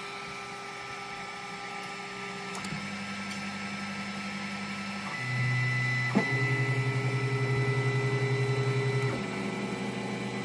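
Polaroid PlaySmart 3D printer's stepper motors humming in steady tones that shift pitch every few seconds as the print head moves. Between about six and nine seconds in comes a rapid, even pulsing, around ten a second, with the extruder clicking as it skips: the bed has lost its level and sits too close to the nozzle.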